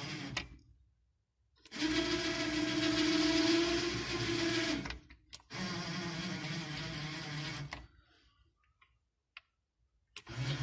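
Ursus 1224 tractor's diesel engine running steadily, heard in three short stretches broken by abrupt cuts to silence.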